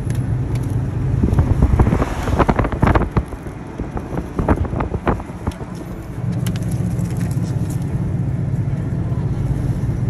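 Road noise and wind rushing in through an open window of a moving car, with a steady low rumble. The wind buffets hard and choppily between about one and five seconds in.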